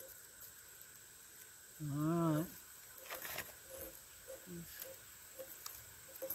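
A person's short wavering hum, about half a second long, about two seconds in. After it come faint scraping and scratching sounds from a knife scraping birch bark into tinder.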